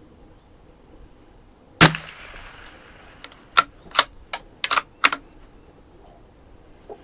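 A single .22 LR rimfire shot from a Savage FV bolt-action target rifle, a sharp crack with a short echo. About two seconds later come a quick run of metallic clicks, the bolt being worked to eject the case and chamber the next round.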